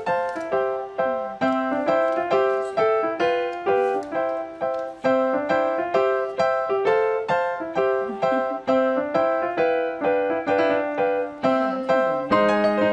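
Background piano music: a simple melody of single struck notes at an even pace of about three notes a second.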